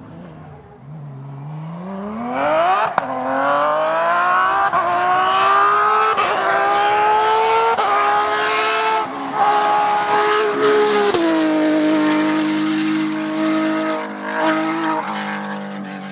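Rally car engine at full throttle, its pitch climbing and dropping back with each of several quick upshifts. About eleven seconds in the pitch drops and the engine holds a lower, steadier note.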